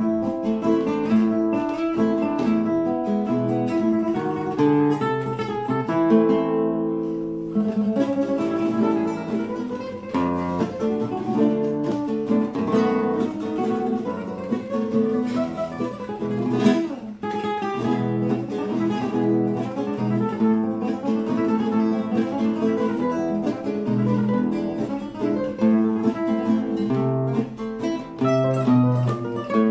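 Solo classical guitar played fingerstyle, plucked melody notes over bass notes, in a medley of valses criollos. About six seconds in, a chord is left ringing for a moment before the playing picks up again.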